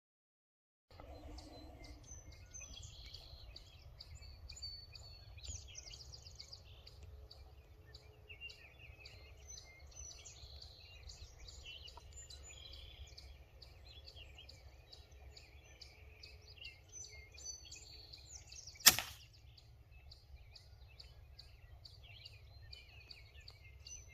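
Birds chirping and singing steadily over a low outdoor rumble. About nineteen seconds in, a single sharp crack of a pellet air rifle shot, the loudest sound by far.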